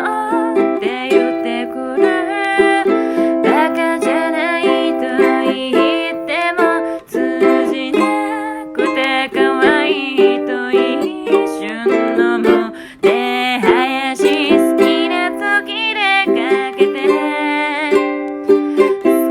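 Ukulele playing a song, with notes sounding continuously throughout.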